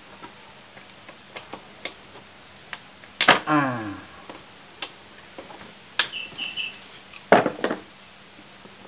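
A socket ratchet and metal tools clicking and clanking on a scooter engine as bolts are undone: scattered sharp clicks, with two louder metallic knocks about three and seven seconds in.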